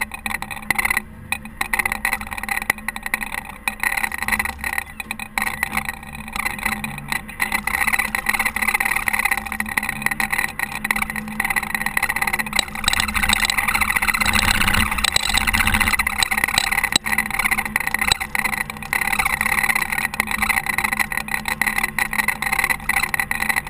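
Caterpillar TH330B telehandler's diesel engine running steadily while snowplowing, with a swell in engine noise about halfway through.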